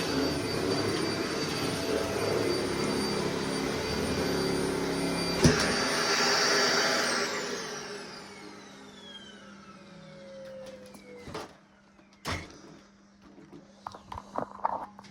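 Corded Dyson vacuum cleaner running steadily. About seven seconds in it is switched off and its motor winds down with a falling whine. Two sharp knocks follow.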